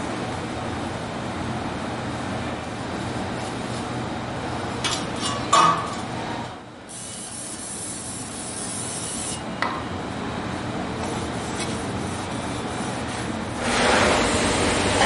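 A hand-held cut-off wheel cutting through a stainless steel exhaust pipe, a hissing rasp for about two and a half seconds, after a few sharp metal knocks of pipes being handled. A steady hum runs underneath.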